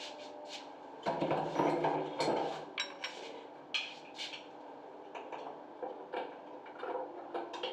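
Light clicks and knocks of a screwdriver and valve fittings being handled at a concealed shower valve. About a second in there is a denser, louder stretch of handling noise lasting about a second and a half.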